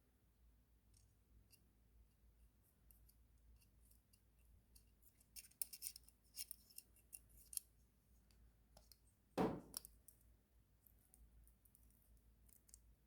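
Small pocket utility knife being handled: a run of sharp metal clicks and scrapes about halfway through, then a single louder knock a couple of seconds later, with faint ticks around them.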